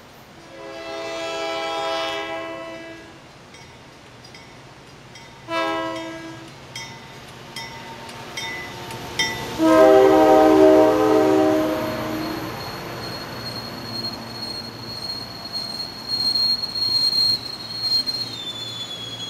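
MBTA commuter train's diesel locomotive sounding its multi-note air horn as it approaches and passes: a long blast, a short one about five seconds in, and a longer, loudest blast around ten seconds in as the locomotive goes by. After it, the passenger coaches roll past with a steady high-pitched wheel squeal over the rumble of the train.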